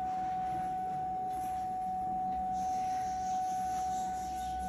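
A steady, pure high tone held at one pitch like a sustained electronic note, with faint gritty rustling as a pomfret is pressed into a plate of semolina coating.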